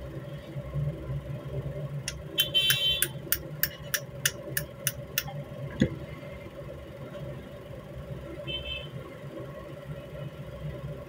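Rifle bolt and a newly fitted ejector being worked by hand: a quick run of about a dozen sharp small metal clicks, about three or four a second, then a single knock, over a steady low hum.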